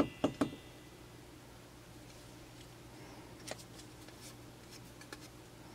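A few faint clicks and taps from a digital caliper being picked up and handled against a cylinder: several close together at the start, then single ticks spaced about a second apart, over a low steady hum.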